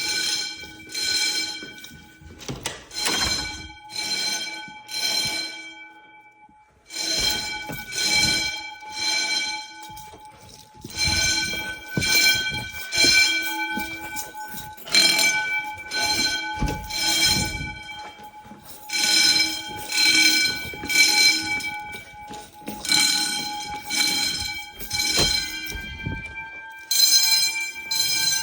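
Wheelock 10-inch fire alarm bells ringing during a fire drill, sounding in on-off pulses about once a second with a few longer pauses.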